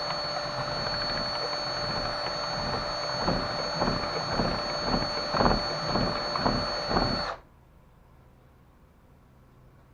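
A handheld power tool running with a steady high whine. From about three seconds in it bites into the work in a series of uneven strokes, as a part is worked down to fit, then it is switched off suddenly about seven seconds in.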